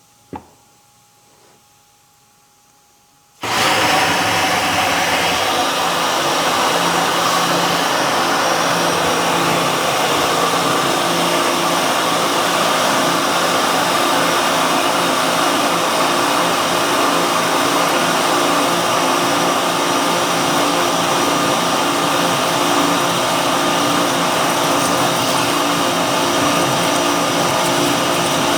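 Four Ryobi electric pressure washers switched on together about three and a half seconds in, then running steadily with a hum of several steady tones as they spray at high flow through a 12.0 nozzle during a timed gallons-per-minute test. A short click sounds about half a second in.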